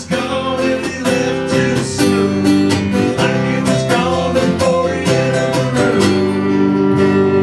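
Acoustic guitar played in a country style, with steady strumming and picked notes in an instrumental break between sung verses.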